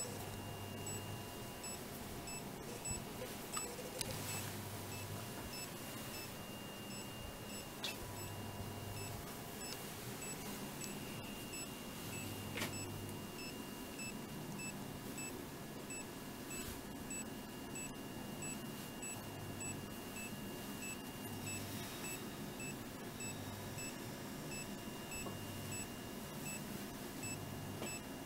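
Handheld ECG monitor beeping with each detected heartbeat of a boxer dog, short high beeps about twice a second, with a low hum that comes and goes every few seconds.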